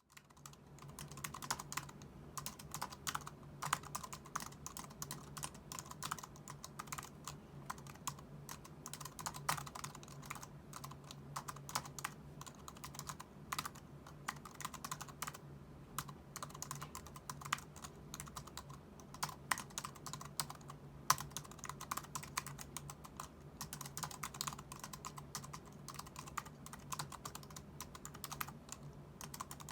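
Continuous typing on an Anker ultra-slim Bluetooth keyboard: a quick, irregular stream of light key clicks.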